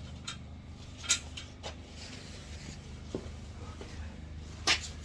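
A few scattered sharp clicks and knocks of objects being handled and set down, the loudest about a second in and near the end, over a low steady hum.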